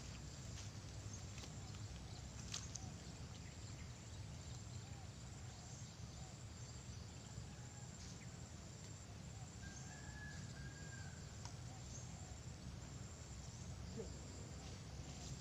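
Quiet rural outdoor ambience: a steady low wind rumble on the microphone, a high pulsing insect trill, and faint bird calls.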